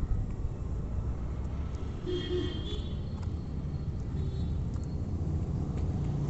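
Steady low rumble of road traffic, with a brief high-pitched tone, two or three notes, about two seconds in.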